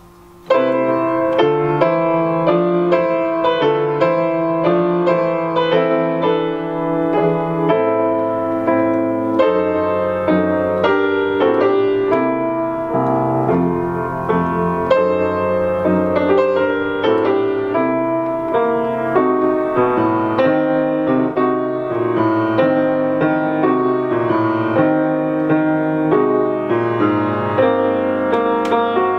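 Grand piano being played, several notes sounding together as chords under a melody, starting about half a second in after a brief pause.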